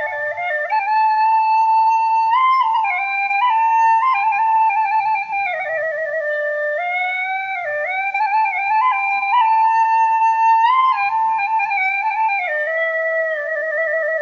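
Background music: a single flute-like wind instrument playing a slow melody of held notes with vibrato, stepping up and down in pitch.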